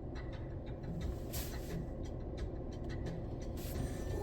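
Steady low road and engine rumble inside a moving vehicle, with a few faint clicks.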